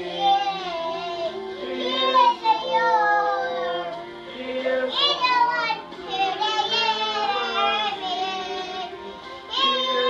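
A family singing a worship song together, the voices of young children prominent alongside adults, in phrases with short breaths between lines.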